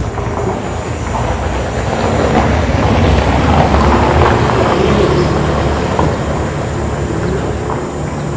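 A motor vehicle passing close by on the street, its engine rumble and road noise building to a peak about four seconds in and then easing off.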